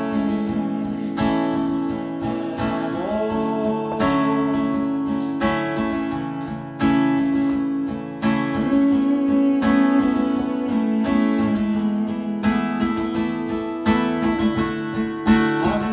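Acoustic guitar laid flat across the lap, playing an instrumental passage with chords struck about every second and a half and a few notes sliding in pitch.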